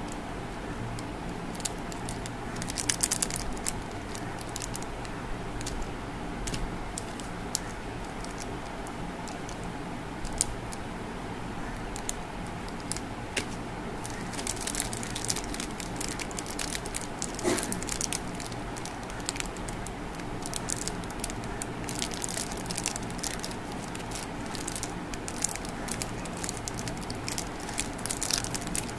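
Plastic chocolate bar wrappers crinkling and crackling as they are handled, in irregular bursts of small crackles, busiest about three seconds in and through the second half.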